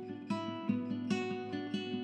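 Background music: plucked acoustic guitar playing notes and chords in a steady rhythm.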